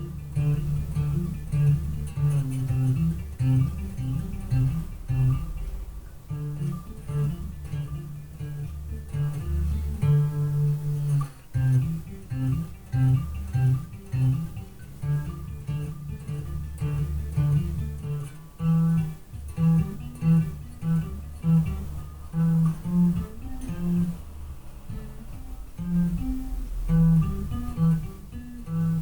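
Electric bass guitar played through a bass amp cabinet, a run of quick plucked low notes with short breaks between phrases, picked up from across the room by a webcam microphone.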